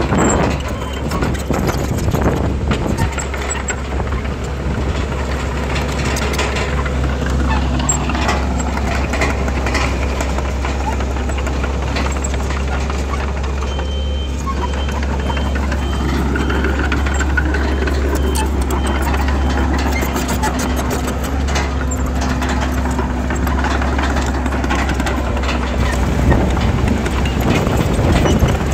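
Heavy diesel earthmoving machinery, bulldozer and dump truck engines, running steadily under load, with a faint repeating high reversing beep heard now and then.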